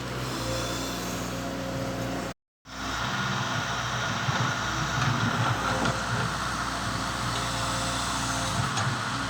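Diesel engine of a Volvo Pel Job EB506 excavator running steadily. The sound drops out completely for a moment about two and a half seconds in, then comes back rougher and more uneven.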